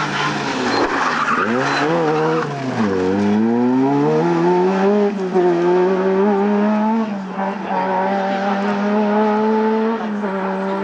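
Rally car engine braking into a bend, its revs dropping about two seconds in, then accelerating hard out of it and holding high, nearly steady revs as the car pulls away down the straight.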